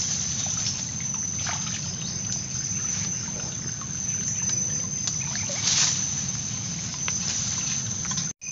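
Water sloshing and trickling as a person wades waist-deep and handles a crab trap, with small splashes here and there, over a steady high-pitched chirring of insects.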